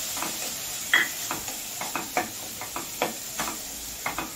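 Spatula scraping and knocking against a stainless steel kadhai as chopped onion and dried coconut are stirred and roasted in a little oil, over a faint steady sizzle. The knocks come irregularly, a couple a second, the loudest about a second in.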